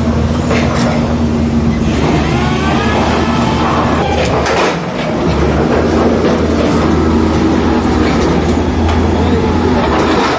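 A train running on rails: a steady low hum with a few clanks about four and a half seconds in.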